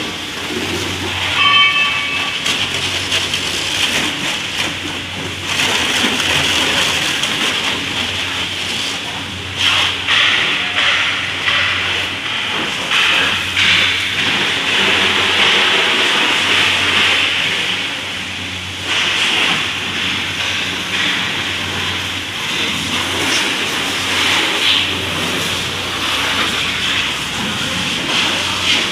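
High-pressure water jet from a car-wash hose hissing as it sprays a car's body and underside, swelling and easing as the spray is moved around, over a steady low hum.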